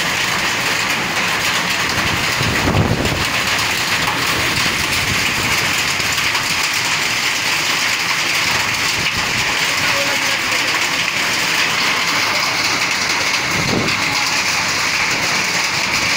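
Hailstorm: hail and heavy rain pelting down in a steady, dense hiss, with two brief low rumbles about three seconds in and again about fourteen seconds in.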